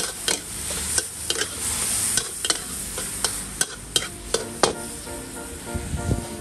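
Stir-frying Chinese kale and pork in a steel wok: a steady sizzle, with the metal ladle clanking and scraping against the wok about a dozen times. The strokes stop about three-quarters of the way through, leaving the sizzle.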